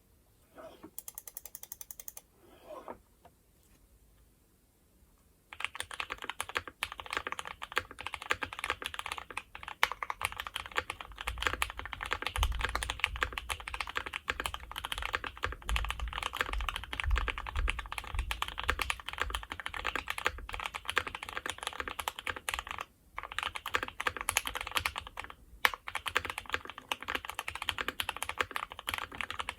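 Keychron Q3 mechanical keyboard with Gateron Ink Black V1 linear switches, modded with force-break, tape mod and thin PE foam, typed on fast and continuously. The typing starts about five seconds in and pauses briefly twice near the end.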